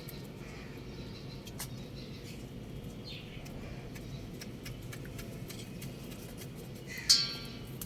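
Young rooster chirping: a few faint calls, one sliding down in pitch, then one short, loud call about seven seconds in, over a steady low rumble.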